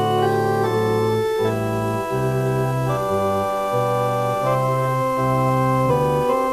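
Organ music: sustained chords held and changed every half second to a second or so, in a steady, stately march.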